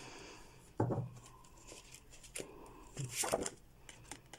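Tarot cards being handled and turned over on a table: a short rustle about a second in, and a louder card slide around three seconds in.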